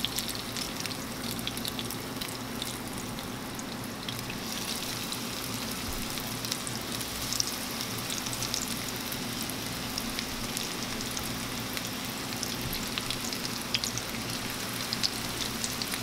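Breaded snook pieces sizzling and crackling in hot oil in a stainless steel frying pan, the sizzle getting louder about four seconds in as more pieces are laid in.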